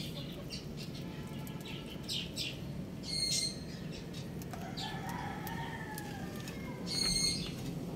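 Rooster pecking grain from a clay feed bowl: scattered sharp pecking taps, with two louder short rasping scrapes about three and seven seconds in. A faint drawn-out rooster crow, rising then falling, sounds in the background about five seconds in.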